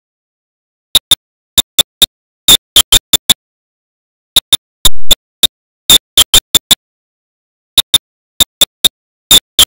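Short, sharp percussive clicks in quick irregular clusters of two to five, with dead silence between them. The hits are bright, and one about five seconds in lasts a little longer than the rest.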